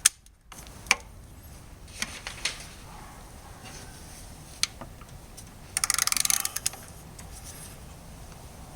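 Hand ratchet clicking in a quick run of about a second, a little past the middle, with a few single clicks and clinks of hand tools before and after.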